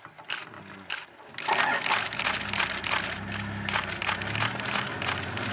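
A few sharp camera-shutter clicks in the first second, then from about a second and a half in a steady low engine hum under dense crackling and crunching noise.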